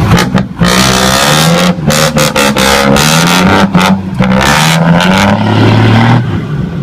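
A loud engine revving, its pitch stepping up and down, broken by several sudden brief cut-outs.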